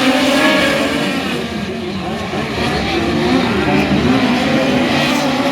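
Several dirt-track midget race cars running together in a qualifying race, their engine notes rising and falling in pitch as they power through the turns.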